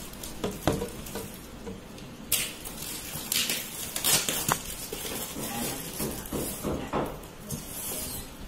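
Plastic calf-feeding bottle parts handled by hand: the hard screw cap and rubber teat clicking and knocking against the plastic bottles, with brief rustles, in scattered sharp clicks.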